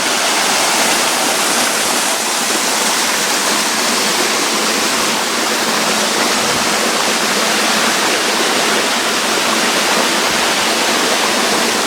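Waterfall with water rushing steadily and evenly.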